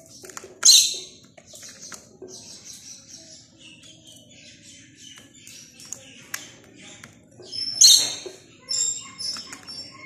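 Zebra finches calling: many short, high chirps, with two loud calls, one about a second in and one just before eight seconds.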